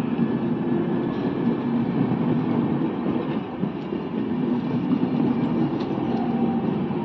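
Air-conditioned Indian Railways passenger coaches rolling past below, a steady rumble of wheels on the rails with a few faint clicks.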